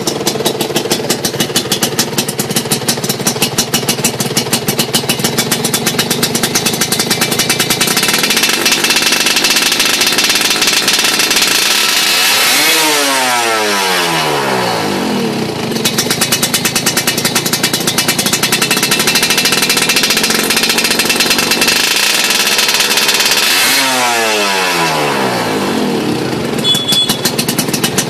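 Suzuki two-stroke underbone motorcycle running through an aftermarket AHM Malaysia racing exhaust. It idles with a fast pulsing beat, is revved up and held for a few seconds before the pitch falls away as the throttle closes, then is revved once more near the end and drops back to idle.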